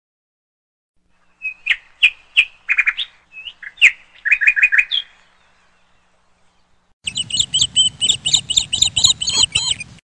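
Parrots chirping: a run of short, sharp chirps for a few seconds, then after a pause a faster, busier string of higher chirps over a low rumble.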